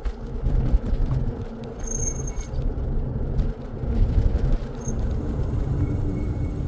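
Wind buffeting the microphone of a phone carried on a moving electric bike: an uneven low rumble that rises and falls.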